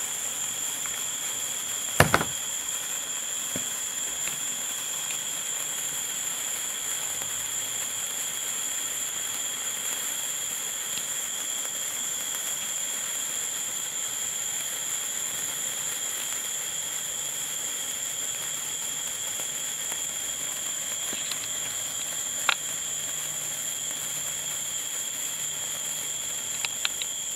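Burning sparkler fizzing with a steady hiss, with a steady high-pitched whine at two pitches over it. There is a sharp knock about two seconds in and a few faint clicks later.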